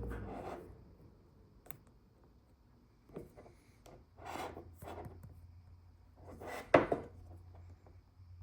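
Handling noise: a few brushing rubs against a hard surface, with a sharp knock about two-thirds of the way through, the loudest sound.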